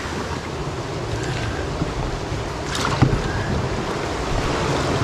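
Whitewater rapid rushing steadily, with a sharp knock about three seconds in.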